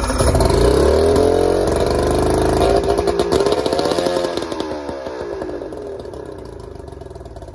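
Nissan 90 outboard motor running on full choke in a cold start after sitting two years. The revs climb and dip, then the engine falls off and fades toward the end as it begins to die.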